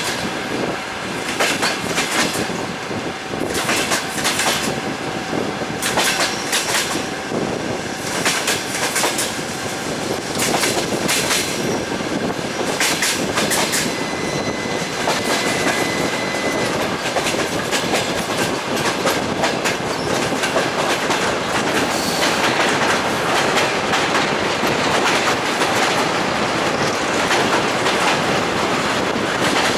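Railway carriage wheels clattering over rail joints on a moving train, the clickety-clack coming in groups every second or two over a steady rolling rumble. The rumble grows denser and steadier in the second half.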